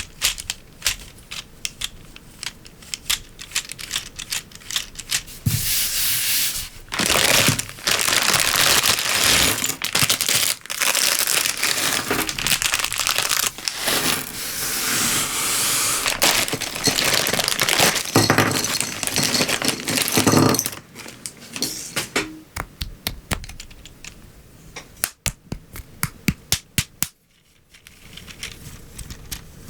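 LEGO Technic plastic parts clicking and snapping together, with a long stretch of loud crinkling and rustling plastic from about six seconds in to about twenty-one seconds in, after which the quick clicks resume.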